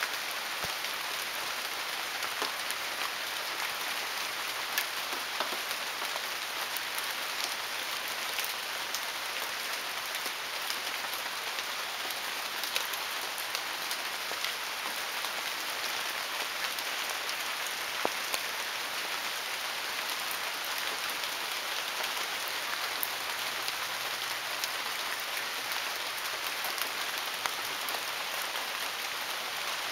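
Steady heavy rain falling, a continuous hiss with many individual drops pattering and ticking on surfaces throughout.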